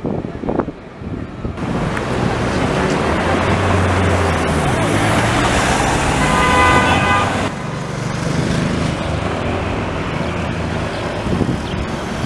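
Light rail tram running along street track amid road traffic, with a low motor hum through the middle. About five seconds in, a horn sounds a steady multi-note tone for about two and a half seconds. The sound changes abruptly about a second and a half in and again about seven and a half seconds in.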